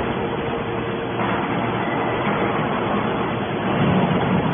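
Hydraulic metal scrap baler running: a steady mechanical drone with a low hum, getting a little louder near the end.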